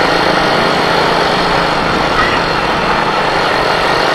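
Motorcycle running at steady road speed, heard from a camera mounted on the bike: a steady rush of wind noise over a low engine hum.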